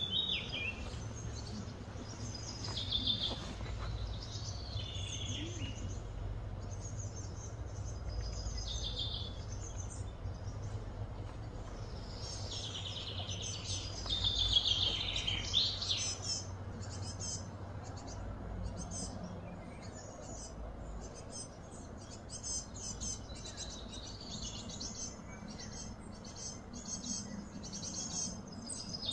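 Birds chirping and calling in the trees, with many short high calls and repeated notes that are busiest and loudest about halfway through, then fainter quick chirps. A steady low hum runs underneath.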